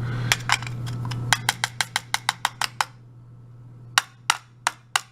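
Sharp little clicks of small metal lock parts as the pin springs are taken out of an Abus 72/40 euro cylinder: a quick run of about seven, then a few more spaced out near the end. A steady low hum runs underneath.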